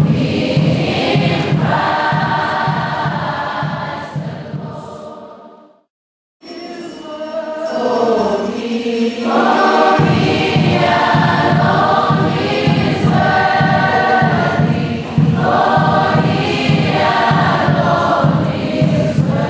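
A choir singing over a steady low beat. It fades out about six seconds in, and after a brief silence another choral song begins, with its beat coming in about ten seconds in.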